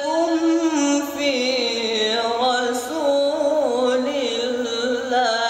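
A teenage male qari reciting the Quran in melodic tilawah style into a microphone, drawing out one long phrase in wavering, ornamented runs. His adolescent voice has changed from his child-reciter days and is described as improving though not yet perfect.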